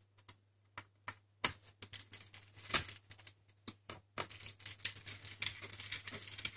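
Small metallic clicks and taps from a screwdriver and screw on the metal drive bracket inside an opened MacBook Pro, spaced out at first; from about four seconds in, a denser scratchy rustling of hands handling the bracket and drive.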